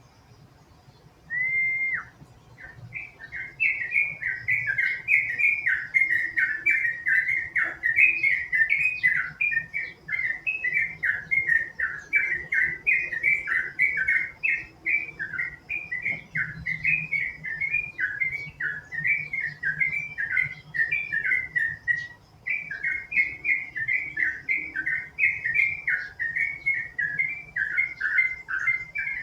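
Yellow-vented bulbul (trucukan) singing a long, nearly unbroken run of rapid bubbling whistled phrases. It opens with a single short whistle and pauses briefly once, about three-quarters of the way through.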